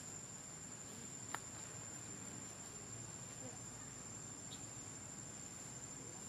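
Insects, crickets or cicadas, droning steadily at one high pitch, with a single sharp click about a second and a half in.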